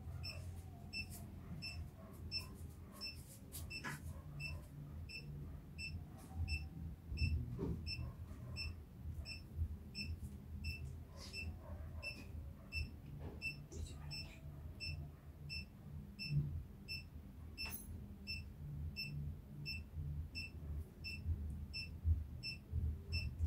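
Handheld long-range treasure locator giving short, high, evenly spaced beeps, about two a second, while it is swept around the room to find its target. A faint low hum runs underneath.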